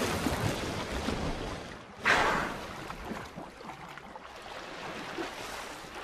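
Bottlenose dolphin splashing back into the water after a leap, the splash dying away. A second, sharper splash comes about two seconds in, then quieter water sloshing.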